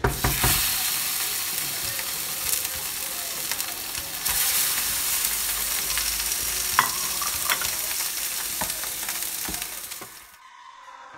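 Salmon fillets sizzling in hot oil in a frying pan, the sizzle starting suddenly and loud as the fillet goes in. A few sharp clicks of metal tongs are heard midway, and the sizzle fades out near the end.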